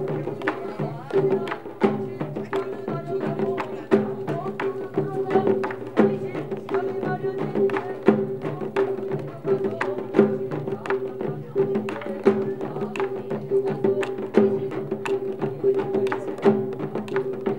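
Korean pungmul folk band playing: small hand drums and other percussion struck in a fast, steady rhythm, with a steady ringing tone held underneath.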